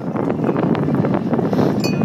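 Wind buffeting the microphone on a moving bicycle in blowing dust, over a constant rattle of the bike, with a sharp metallic clink near the end.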